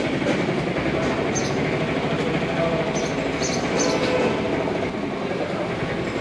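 Steady rumbling and rattling of a moving vehicle, with scattered brief high squeaks.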